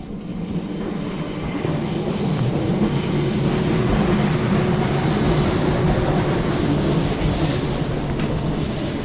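Two-car electric local train running past, a rumble that swells to its loudest about halfway through and then eases off, with faint steady high-pitched ringing tones over it.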